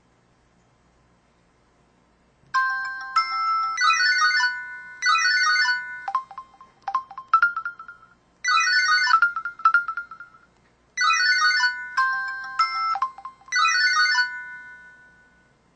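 Samsung SCH-B570 mobile phone's speaker playing a string of short synthesized jingles and chimes, its menu sound effects. The tones start a couple of seconds in and come in several short groups, with brief gaps between them.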